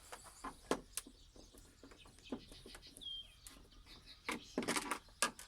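Faint scattered clicks and taps of a screwdriver working the screws out of a TV's plastic back case, with one short bird chirp about three seconds in.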